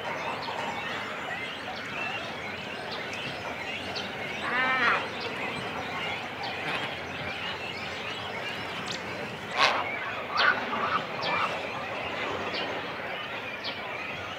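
Cormorant nesting colony at close range: a continuous din of chicks and adults calling on the nest. Louder harsh calls stand out about 5 seconds and 10 seconds in, one of them a rapid run of repeated notes.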